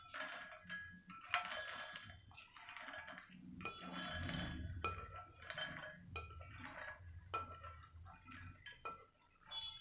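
Spatula scraping crisp roasted makhana (puffed lotus seeds) out of a non-stick pan, the light puffs rattling and tumbling into a bowl in a run of irregular scrapes and clinks.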